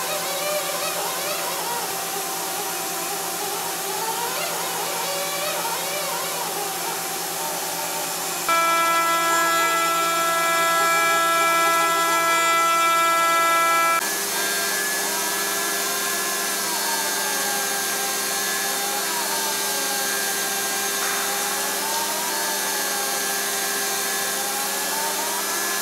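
Hwacheon M2-5AX five-axis CNC machining center milling a semi-finishing pass with a ball-nose end mill: a steady spindle whine with cutting noise. The tones change abruptly, and louder, about 8 seconds in, then change again about 14 seconds in. After that, a pitch rises and falls slowly as the tool sweeps over the curved part.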